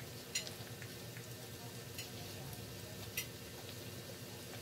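Flour-coated chicken wings frying in a pan of oil: a steady sizzle broken by three sharp pops.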